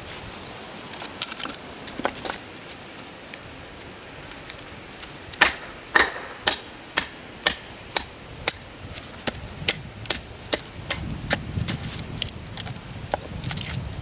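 A heavy knife chopping into firewood with repeated sharp knocks, a few scattered strikes at first, then a steady run of about two strikes a second.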